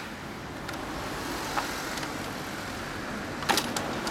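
Street traffic noise, a steady hiss that swells slightly, with a single click about a second and a half in and a quick cluster of clicks about three and a half seconds in.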